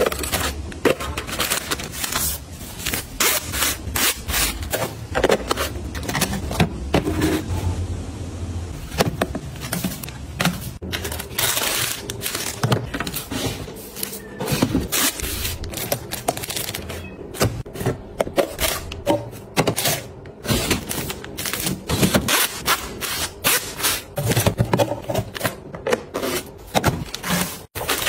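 Household items being handled and set down by hand: a dense, irregular run of clicks, taps and knocks with scraping and rubbing between them.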